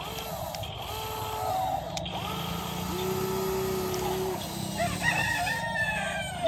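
Electric motors of a toy RC excavator whining in short runs that rise, hold and fall away as the arm and tracks move, with one longer run in the middle. A few short high chirps come near the end.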